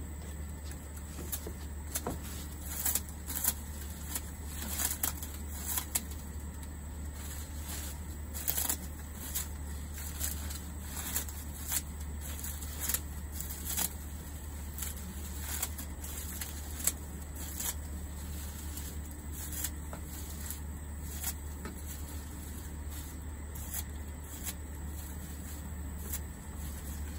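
Scissors snipping dry corn leaves: irregular crisp cuts and leaf rustles, sometimes two or three close together, over a steady low hum.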